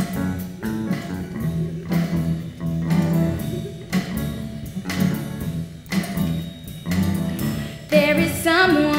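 Live band playing the instrumental introduction to a musical-theatre song, with bass and sustained chords over a steady beat of about one stroke a second. A singer's voice comes in near the end.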